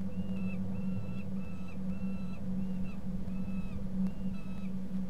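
Young peregrine falcon giving a repeated whining begging call, about two drawn-out calls a second, each dipping slightly at its end; the calls stop near the end. A steady low hum runs underneath.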